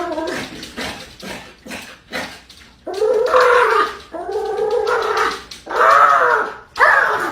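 A pet animal gives four long, wavering cries, starting about three seconds in, after a stretch of scattered knocks and clicks.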